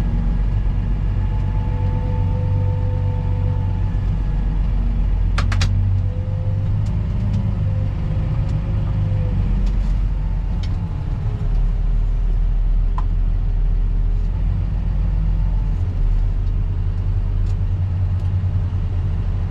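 Earthmoving machine's engine running steadily under load: a deep, even rumble with a faint whine above it that wavers slightly in pitch. A few short clicks about five seconds in.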